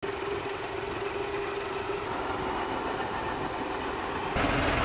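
Tractor engine running steadily, driving the sprayer's diaphragm pump. The sound gets louder all at once near the end.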